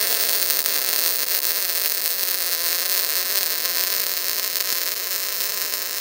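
MIG welding arc running steadily as a continuous, even hiss while the torch is pushed forward along the bead under CO2 shielding gas.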